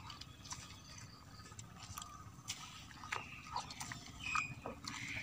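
Wet squelching and small splashes as a hand squeezes and kneads pounded andrographis leaves in water in a clay mortar, wringing out the bitter green juice. A short high whine comes near the end.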